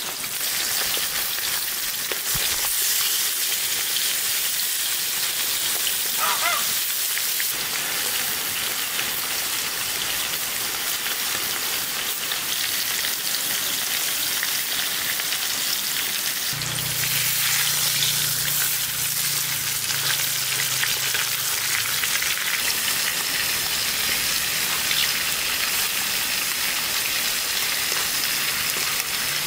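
Spice-rubbed lamb pieces frying in hot oil in a cast-iron pot, giving a steady, loud sizzle.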